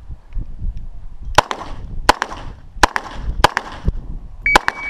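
CZ 75 SP-01 9mm pistol firing a string of shots about two-thirds of a second apart, each with a short echo off the range berms. Near the end a shot timer's high electronic beep sounds over the last shot, marking the end of the stage's par time.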